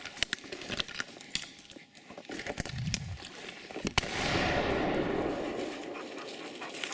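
A single shotgun shot about four seconds in, its report rolling and dying away through the woods over about two seconds. Before it, scattered crackling of brush and twigs.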